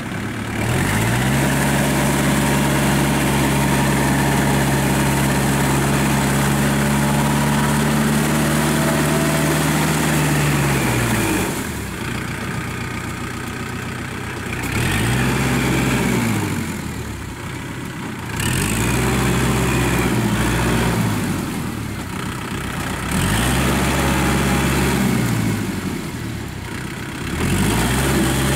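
Kubota L5018 tractor's diesel engine running while it pulls a rotary tiller through paddy mud. It climbs to a high steady speed for about ten seconds, then drops back and revs up again four more times, every few seconds.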